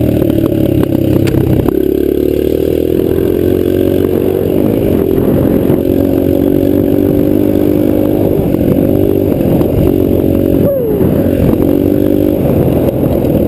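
Dirt bike engine running, its pitch rising and falling several times with the throttle, with a quick rev near the end.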